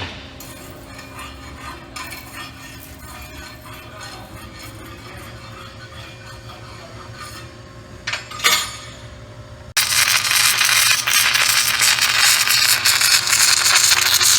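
Low steady hum of the welding equipment with two sharp metal clanks about eight seconds in. Nearly ten seconds in, a loud, steady crackling hiss starts suddenly as the submerged arc welder strikes its arc and welds under the poured flux.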